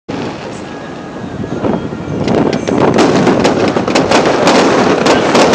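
Aerial fireworks: a steady hiss at first, then, from about two seconds in, a thickening stream of sharp crackling pops that grows louder.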